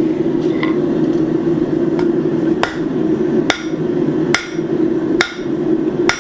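Flat-face hammer striking hot steel on an anvil to flatten a forged leaf: five sharp ringing blows at an even pace of a little over one a second, starting a couple of seconds in, over a steady drone.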